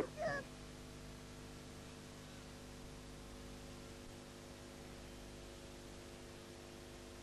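Steady low hum made of several held tones over faint hiss. A short sound falling in pitch comes just after the start.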